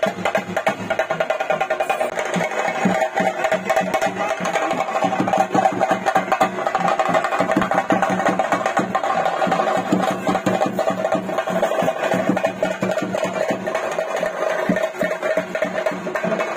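Theyyam ritual drumming: fast, dense chenda strokes going on without a break under a steady held tone, the percussion that accompanies a theyyam's emergence.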